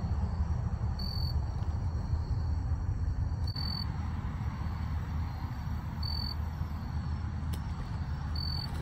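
Outdoor ambience: a steady low rumble, with a short high-pitched chirp repeating about every two and a half seconds.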